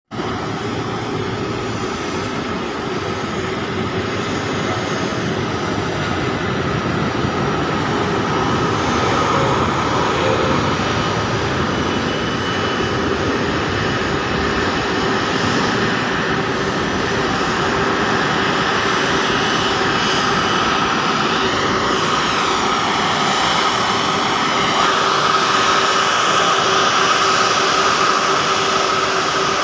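Airbus A330 twin jet engines running at taxi power: a steady roar with a high whine, growing slowly louder as the airliner taxis toward the listener.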